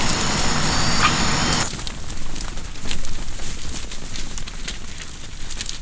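A dense noisy ambience with two steady high-pitched tones cuts off abruptly after about a second and a half, giving way to a quieter ambience of scattered crackling clicks.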